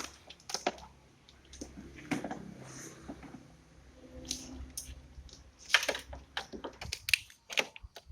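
Scattered sharp clicks and light taps of car parts being handled, with a denser run of louder clicks in the second half.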